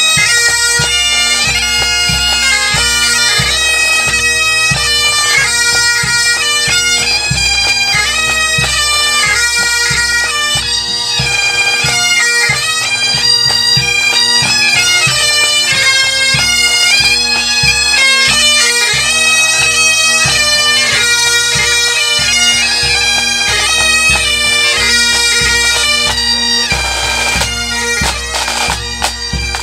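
Scottish pipe band playing on the march: Highland bagpipes sounding a tune over their steady drones, with drums keeping the beat. Near the end the pipes stop and the drums play on.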